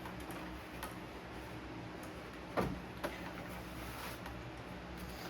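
A few sharp clicks and taps of hard plastic being handled as the stuck front bezel of a Macintosh Classic case is worked at, the loudest about two and a half seconds in with another just after, over a steady low hum.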